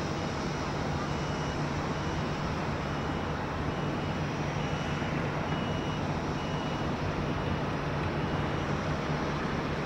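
Boeing 787 airliner's jet engines running at low power as it starts to taxi: a steady rumble and hiss with a low hum. Over it, short high beeps repeat about one every two-thirds of a second and stop near the end.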